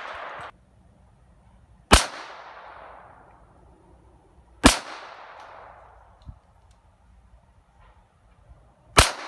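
Three single gunshots from a firearm, about three and four seconds apart, each followed by a fading echo.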